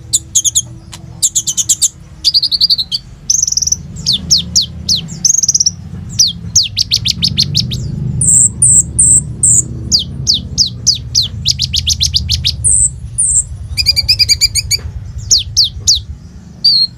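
Brown-throated sunbird (kolibri ninja) singing hard in a fast, varied stream of high chirps, quick downward-sweeping notes and short rattling trills, loaded with mimicked calls of other songbirds. A low rumble runs underneath.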